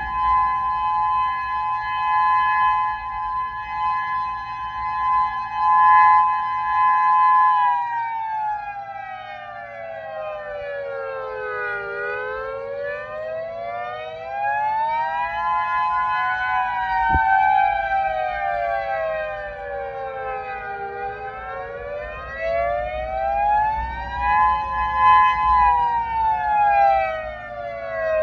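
Federal Signal Modulator outdoor warning sirens sounding a steady tone, then about eight seconds in switching to a wail that slowly falls and rises, about nine seconds per cycle, with several overlapping tones.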